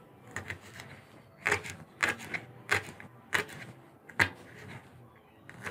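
Chef's knife chopping a leek on a plastic cutting board: a string of sharp knocks as the blade cuts through and strikes the board, spaced roughly half a second to a second apart.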